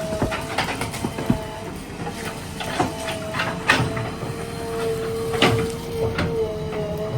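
JCB 3DX backhoe loader working on a dead tree: a steady mechanical whine runs under many irregular sharp cracks and knocks.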